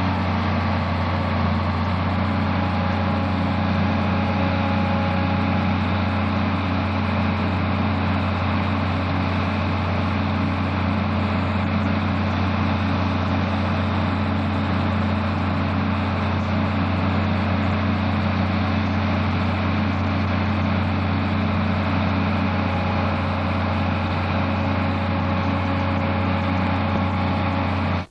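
Case International combine's diesel engine running steadily at an even pitch, with no revving. It cuts off suddenly at the very end.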